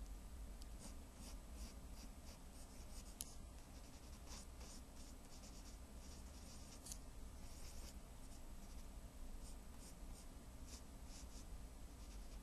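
Faint scratching of quick drawing strokes, short and irregular, sometimes several a second, over a steady low hum.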